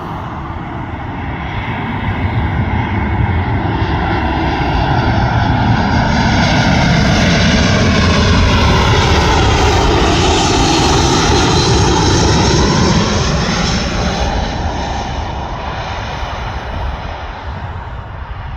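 Airbus A320 jet airliner passing on its landing approach: engine noise swells to a peak midway and then fades away, with a sweeping, phasing change in pitch as it goes by.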